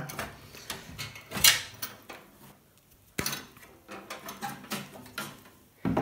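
Pliers working locked spade-connector clips off the metal terminals of a microwave's thermal cutoff: scattered clicks and scrapes of metal on metal, with a sharp click about three seconds in.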